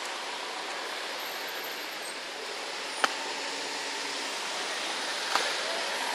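Steady rushing noise, broken by two sharp knocks: one about halfway through and another about two seconds later.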